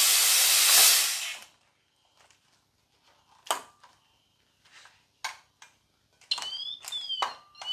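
Leftover air venting from a firefighter's SCBA with a loud hiss for about a second and a half, cut off suddenly. A few separate clicks and knocks of the pack's hardware follow. About six seconds in, an electronic alarm starts chirping with quick rising and falling tones.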